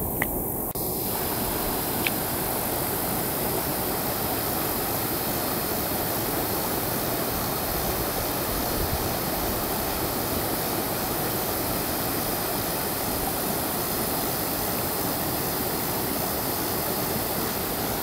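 Steady rush of creek water spilling over a low rock ledge and through riffles, an even hiss that fills out about a second in and holds at a constant level.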